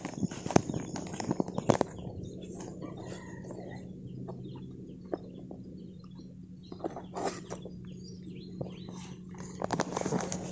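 Footsteps and the swish of tall grass brushing past as someone walks a narrow path through thick grass, with scattered short rustles and snaps.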